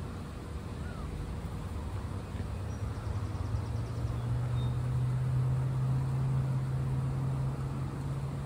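Low, steady drone of an engine or motor, growing louder about three and a half seconds in and holding, with a few faint bird chirps above it.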